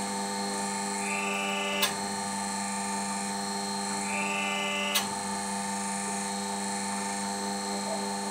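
Hydraulic forging press working a hot steel billet: the pump motor hums steadily, and twice a higher whine rises for about a second as the dies squeeze, each ending in a sharp click.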